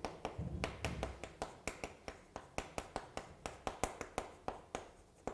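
Chalk writing on a chalkboard: a quick run of sharp taps and short scrapes, about five a second, as a word is written stroke by stroke, with a few duller knocks in the first second.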